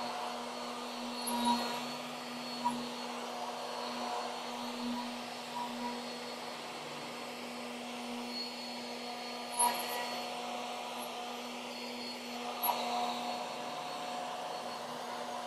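Skil 14-amp router with a 2-inch flattening bit running at a steady pitch as it is pushed across a board on a router sled, surfacing the wood. A few short louder bites come where the bit catches high spots.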